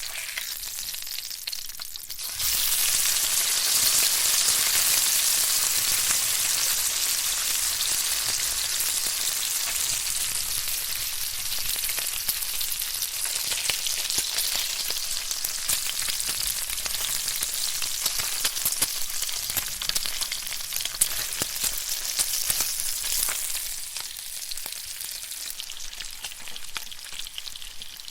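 Bacon frying in a pan: a steady sizzling hiss peppered with small pops and crackles. It is quieter at first, jumps suddenly louder about two seconds in, and eases off somewhat near the end.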